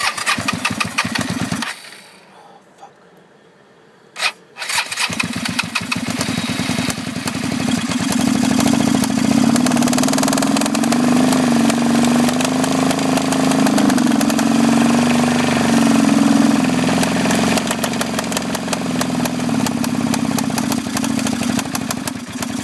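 Suzuki SV650's V-twin engine cranking on the starter for its first start after an engine failure. It turns over for about a second and a half and stops, a click follows, then from about five seconds in it cranks again, catches and keeps running at an idle that wavers a little in pitch.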